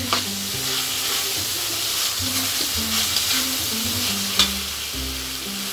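Carrot sticks, shallots and chillies sizzling in hot oil and spice paste in a metal wok, stirred with a metal spatula. The spatula clicks sharply against the pan at the start and again about four seconds in.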